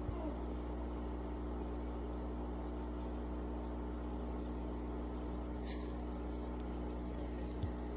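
Steady electrical hum and hiss of running aquarium equipment, with air bubbling from an air stone in the tank. A light knock is heard near the end.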